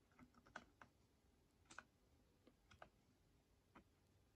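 Faint, irregular small clicks of brass clock parts knocking together as the music roll of a Hermle triple chime movement is handled and eased into place against the hammer levers.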